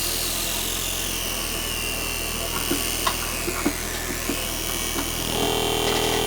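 Circuit-bent noise box putting out harsh electronic noise, with a high tone that glides down and then sweeps back up as a knob is turned. There are a few small clicks, and about five seconds in, steady droning tones join in.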